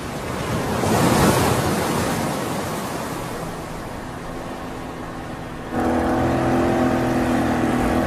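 Sea water rushing and washing, swelling to a peak about a second in and then easing off. A boat's engine then starts in suddenly about six seconds in and runs steadily.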